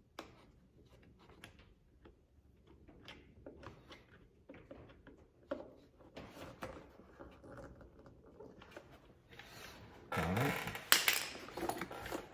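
A fabric door storage bag being handled and fitted into a plastic UTV door panel: soft rustling and light clicks. About ten seconds in comes a much louder scraping rasp.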